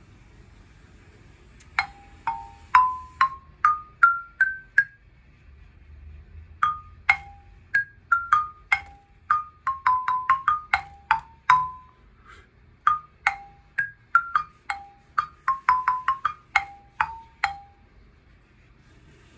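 Lithophone with bars of fossilized cladopora coral, struck with a mallet. Each note rings briefly. About two seconds in comes a rising run of seven or eight notes. After a short pause a melody of quicker notes follows and stops a couple of seconds before the end.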